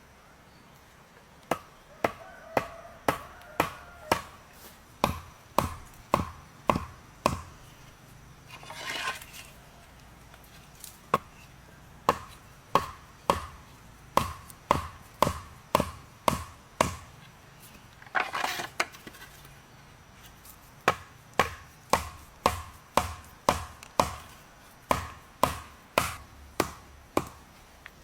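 Wood being chopped: runs of sharp, even blows, about two a second, each with a short ring. The chopping pauses twice for a brief rustle.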